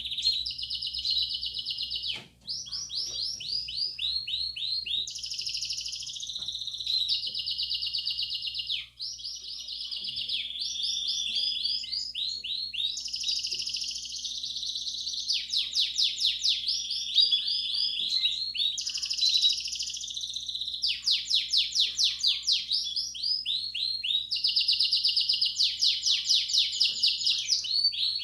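Belgian canary singing a continuous 'campainha' song of fast trills and rolls, switching to a new phrase every second or two.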